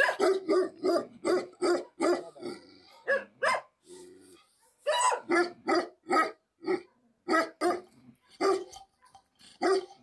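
Bhote Kukur, a Himalayan livestock guardian dog, barking repeatedly in a deep, resonant voice: a quick run of about seven barks, a short lull about three seconds in, then more barks at uneven spacing.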